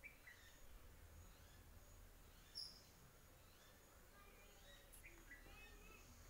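Near silence: faint outdoor background with a few distant bird chirps, the clearest a short high chirp about two and a half seconds in.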